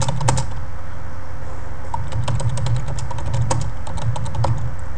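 Typing on a computer keyboard: a run of quick keystroke clicks that thins out about a second in and picks up again for a steady burst of typing, over a steady low hum.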